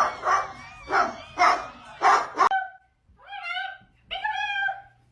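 About six loud, dog-like barks in quick succession, roughly two a second, then an abrupt change to two drawn-out, wavering whining cries.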